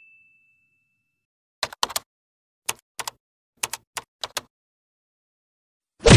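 Typewriter-style key clicks in short clusters, a typing sound effect for on-screen text; a short loud noise sounds near the end.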